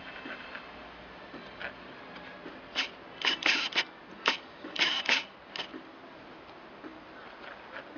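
A paintbrush tapping and scraping in a small metal paint tin: a quick run of short clicks and brief scrapes, starting about three seconds in and lasting a couple of seconds.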